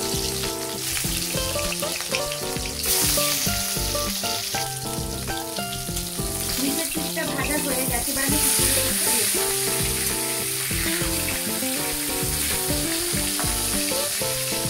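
Katla fish pieces sizzling as they fry in hot mustard oil in a kadai, turned now and then with a spatula. The sizzle gets louder about three seconds in. Background music with a melody plays underneath.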